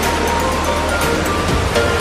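Background music, a melody of short held notes, laid over the steady rushing of a waterfall.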